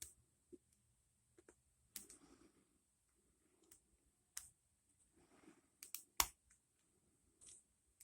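Faint, scattered metallic clicks and short scrapes of a hook pick working the pins one at a time in an ASSA Rune 2 padlock, with the sharpest click a little after six seconds.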